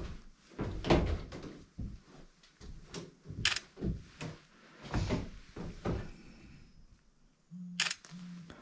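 Irregular knocks and thumps of footsteps and handling on old wooden floorboards in a small room, with two short low buzzes near the end.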